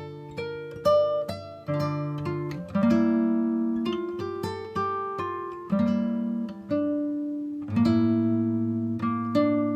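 Background music: guitar playing plucked notes and chords, each note struck sharply and ringing out as it fades.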